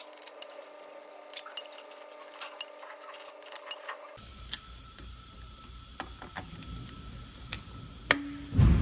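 Light metallic clicks and taps of diesel injectors and hand tools being handled while the injectors are fitted into the Volvo D13C cylinder head, over a faint steady hum. A sharper click and a dull thump come near the end.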